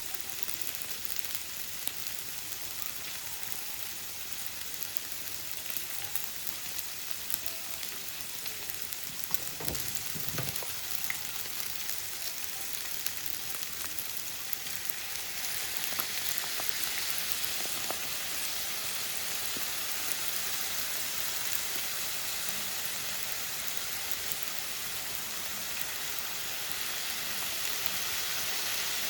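Yakisoba frying in a pan, sizzling steadily with many small crackles. There are a couple of low knocks about a third of the way in, and the sizzle grows louder about halfway.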